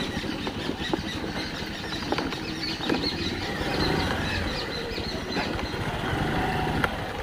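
A motor vehicle's engine running as it crosses a rough hill track, with repeated short high squeaks and a few sharp knocks over the steady engine noise.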